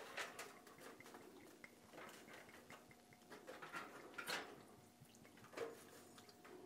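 Faint trickle of whisky poured slowly from a bottle onto a rack of pork spare ribs lying in aluminium foil, with scattered soft clicks and two slightly louder taps in the second half.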